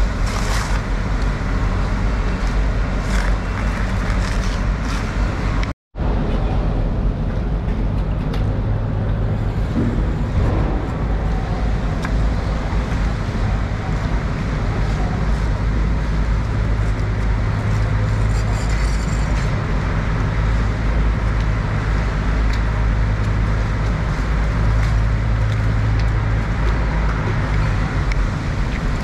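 Steady low machine rumble with a hum, cutting out completely for an instant about six seconds in.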